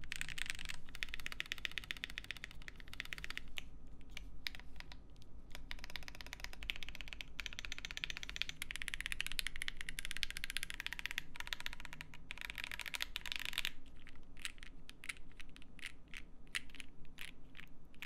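Bubble75 prototype mechanical keyboard with Pinoko switches, GMK keycaps and EVA foam dampening, being typed on: fast runs of keystrokes with short pauses, then slower single keystrokes in the last few seconds. The keystrokes give a soft clack.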